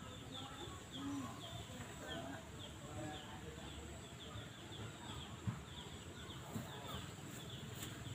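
Outdoor ambience with birds chirping: short, high, falling chirps repeat a couple of times a second over a faint steady high whine. A single soft knock comes about five and a half seconds in.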